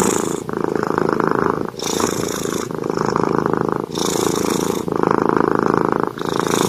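Domestic cat purring loudly and steadily, the purr changing and briefly dipping with each breath in and out, one full breath about every two seconds.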